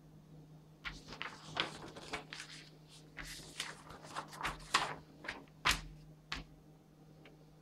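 Large folded paper instruction sheet being turned over, unfolded and smoothed flat by hand: a run of crackling paper rustles from about a second in until about six seconds in, over a faint steady hum.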